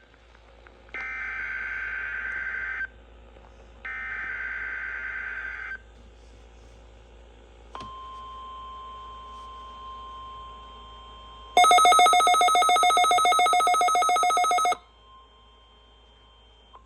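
NOAA Weather Radio weekly test tones. First come the SAME digital header bursts, harsh buzzy data chirps of about two seconds each, twice, with the end of a third at the very start. After a gap, a steady tone of about 1 kHz plays at a lower level. Near the middle it gives way to a louder, rapidly pulsing electronic alert tone lasting about three seconds.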